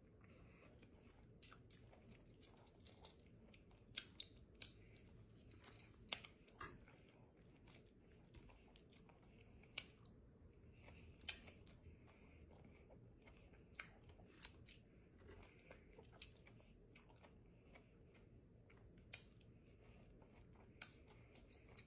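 Faint close-miked chewing of fried buffalo catfish and coleslaw: irregular wet mouth clicks, some sharper than others, over a low steady hum.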